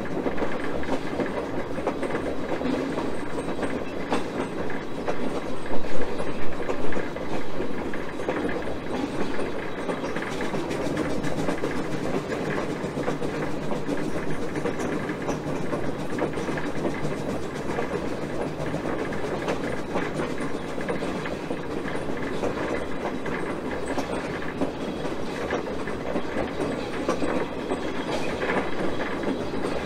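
A 1920 switcher steam locomotive running along the line, heard from its front pilot: a steady rumble and clatter of wheels on rail, with a few louder clacks about six to seven seconds in.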